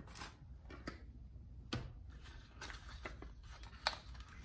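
Cardboard packaging being handled as a small product box is lifted out of a shipping box: scattered rustles and light taps, the sharpest near the end.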